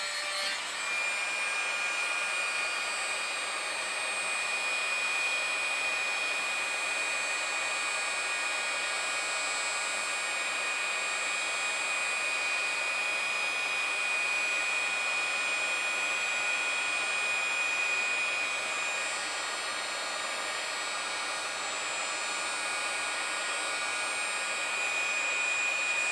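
Electric heat gun running steadily: a hiss of blown air with a high, steady whine. It is heating the adhesive backing of a velcro strip so that it will bond.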